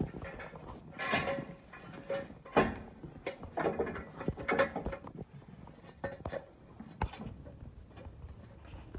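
Rustling, scraping and knocking from a hand-held phone being carried along as someone crawls under a pickup truck. A few short voice-like sounds come in the first half.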